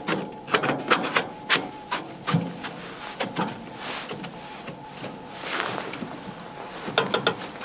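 Metal stovepipe sections clicking, knocking and scraping as they are pushed up and fitted through the tent's chimney opening, with a few stretches of rubbing in between.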